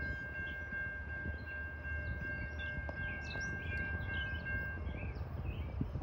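Distant train horn holding one long steady note that stops about five seconds in, over birds chirping and a low rumble from the approaching train.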